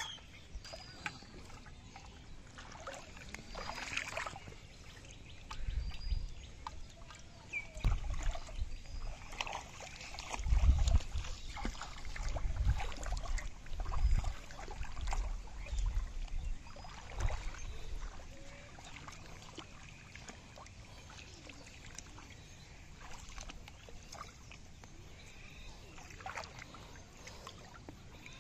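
Water splashing and sloshing as feet wade through shallow muddy water, in uneven bursts that are heaviest in the middle and then settle to small stirring sounds near the end.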